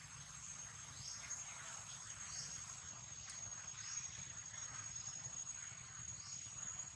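A steady high-pitched insect drone, with short falling chirps repeating about once a second.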